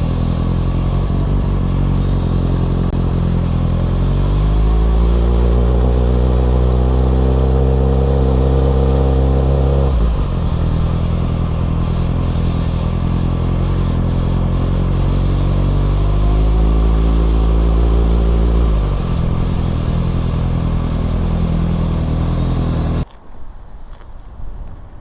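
Kawasaki Ninja ZX6R's inline-four engine running, its pitch climbing for several seconds as it accelerates, dropping suddenly about ten seconds in, then climbing again. The engine sound cuts off abruptly near the end.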